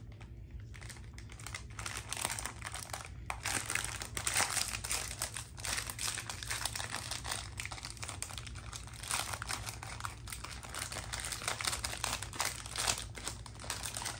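Crinkly plastic wrapper of a packaged snack cake crackling as small hands pick and pull at it to open it, fainter at first and denser after about three seconds.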